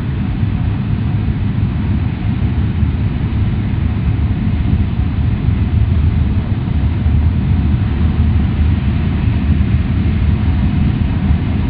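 Steady cabin noise of an E6-series Super Komachi shinkansen running at high speed: an even, low rumble of wheels on rail and air rushing past the car body, with no change in level.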